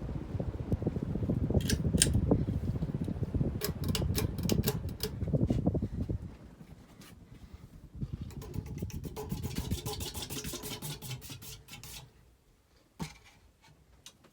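Hampton Bay Cameron II Plus ceiling fan running on high, its air wash rumbling on the microphone along with scattered clicks. About six seconds in the rumble drops off. A rapid run of light ticks follows, and then it goes quiet with a single click near the end.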